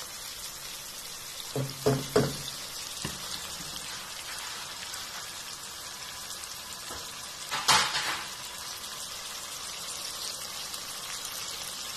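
Chicken pieces sautéing with ginger and onion in a nonstick pan, with a steady sizzle. A few knocks come as the food is stirred: two close together about two seconds in, and a louder one at about eight seconds.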